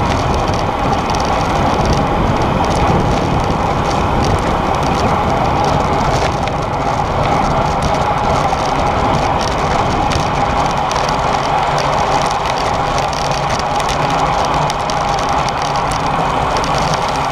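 Racing bicycle riding in a pack, heard from a camera mounted on the bike: a steady rush of wind and tyre noise on the tarmac, with a steady hum under it.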